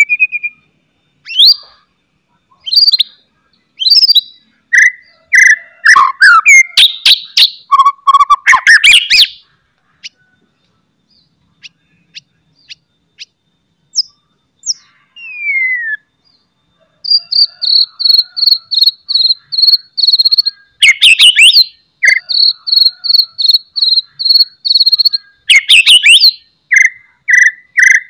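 White-rumped shama singing a varied, loud song of sharp whistles, down-slurred notes and harsh clicking rattles. About halfway through it goes sparse for several seconds, then breaks into long runs of rapid repeated high notes, about four a second.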